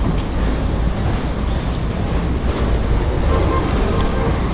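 Steady low rumble of riding a bicycle, with wind buffeting the action camera's microphone and road noise.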